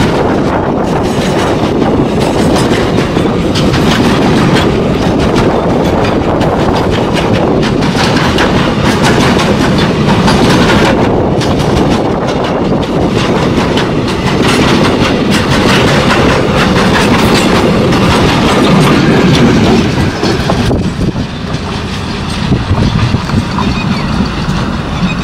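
Container freight wagons rolling past close by: a steady heavy rumble with the wheels clattering over the rail joints. The sound drops off about twenty seconds in as the end of the train passes and moves away, leaving a few scattered wheel clanks.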